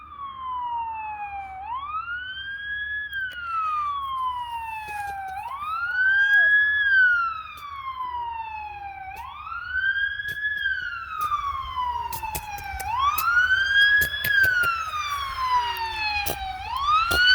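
Police siren wailing, its pitch rising quickly and falling slowly in a cycle of about four seconds, repeated four times. A few sharp clicks sound in the second half.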